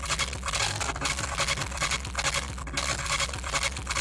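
Loud music from a tall DJ loudspeaker tower, heard as a dense, distorted wash over steady deep bass.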